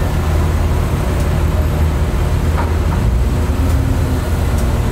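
Diesel engine of a Shinkansen overhead-line maintenance vehicle running steadily at a low, even hum.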